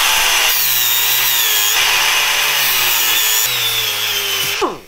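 Air-powered die grinder with a small sanding disc running at high speed and grinding into hard black plastic. It makes a high whine over hissing air, and the pitch wavers as the disc bites. Near the end the trigger is released and the grinder winds down with a falling pitch.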